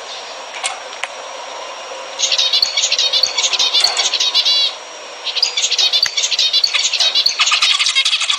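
Zebra finches singing and calling. A single short call comes about half a second in. Rapid chirping song starts about two seconds in, stops briefly near the middle, then resumes and becomes denser toward the end.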